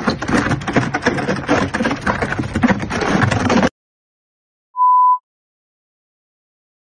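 A loud, dense clattering noise that cuts off suddenly about three and a half seconds in. After a second of silence comes a single short, steady electronic beep, like a censor bleep or test tone.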